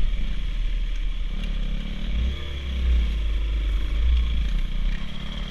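Dirt bike engine running while riding along a trail, picking up briefly a little over halfway through.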